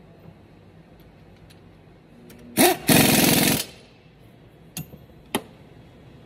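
Pneumatic impact wrench on a long extension running a fastener on the truck's front steering knuckle: a quick blip, then a rapid hammering burst of under a second. Two sharp metal clinks follow near the end.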